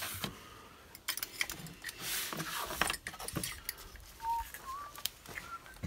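Light metallic clicks and rattles from handling a cordless drill fitted with a hole saw bit, with a few short whistled notes near the end.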